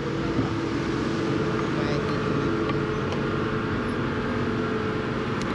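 A machine engine running steadily at a constant speed, giving a level hum.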